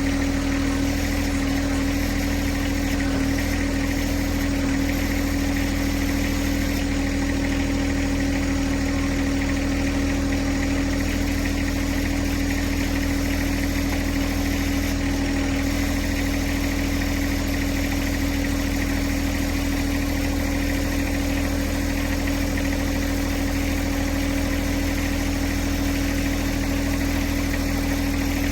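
John Deere 1026R compact tractor's three-cylinder diesel engine running steadily at a constant speed, with no change in revs.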